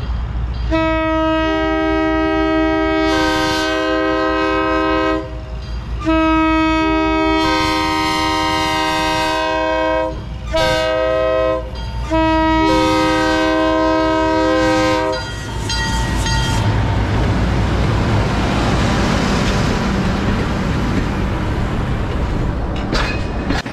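A train's multi-note air horn sounds the grade-crossing signal: two long blasts, a short one, then a long one, with some notes coming in a moment after each blast starts. The train then rolls past with a steady rushing rumble.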